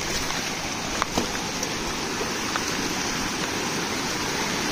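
A shallow rocky stream running and splashing steadily over stones, with a few light knocks about a second in.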